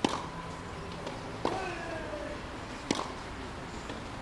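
Tennis rally on a clay court: four sharp racket strikes on the ball, about a second and a half apart. Each strike is followed by a drawn-out, falling vocal grunt from the player.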